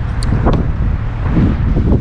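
Wind buffeting the microphone, a steady low rumble, with a couple of faint clicks near the start.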